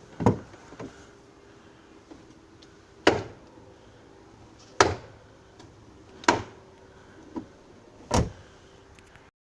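Renault Logan door knocking as it is swung open, five sharp clunks a second or two apart, some followed by a smaller knock. The owner puts the knock down to a worn door check strap (the opening limiter).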